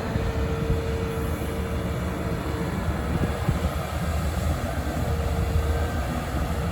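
Heavy construction machinery's diesel engine running steadily: a continuous low rumble with a steady whining tone that fades out partway through and comes back near the end.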